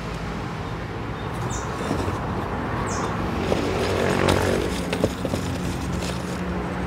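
A motor vehicle's engine running, a steady low hum that swells a little before the middle. A few light clicks come from charcoal chunks and a plastic pot being handled.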